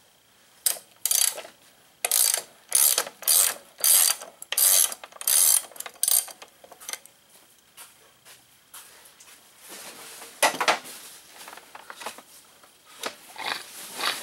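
Ratchet wrench clicking in about nine quick back-and-forth strokes as the big screw of a crankshaft straightening machine is cranked down on a bent push-mower crankshaft. A single sharp metal clank follows a few seconds later, then a few loose clicks.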